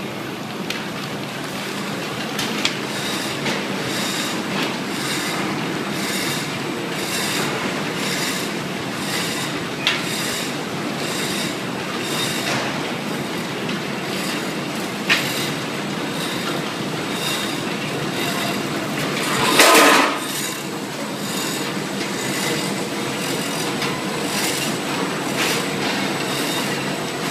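Automatic caramel packaging machine running, a steady mechanical clatter with a regular stroke about every two-thirds of a second. A brief loud squeal comes about twenty seconds in.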